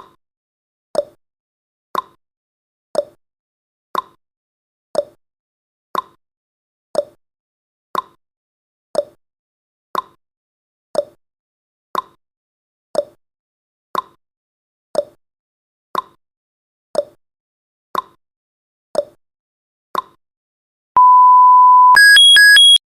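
Countdown timer sound effect: a clock tick-tock once a second, alternating between a higher and a lower tick. It ends in an about one-second steady beep at zero, followed by a rapid high-pitched alarm of alternating beeps.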